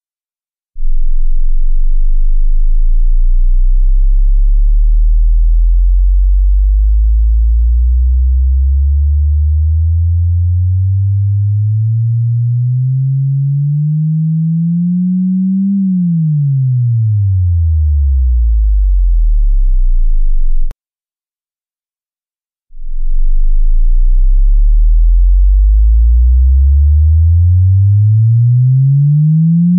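Pure sine-wave test tone for checking headphones. It sweeps slowly upward from a very deep bass hum for about fifteen seconds, glides quickly back down and holds low, then stops. After a two-second gap a second sweep starts low and climbs steadily.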